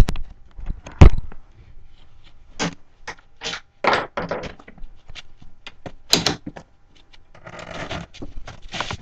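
Handling noise from a laptop's built-in microphone as the laptop is carried and swung about: a string of sharp knocks and bumps, then a rough rustling noise near the end.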